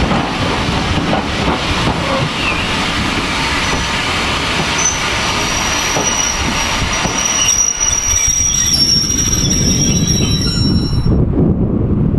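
Passenger coaches rolling past on the rails, the wheels rumbling and clattering, with a steady high-pitched wheel squeal coming in about five seconds in and holding as the last coach goes by. Near the end the train sound cuts off suddenly to wind rumbling on the microphone.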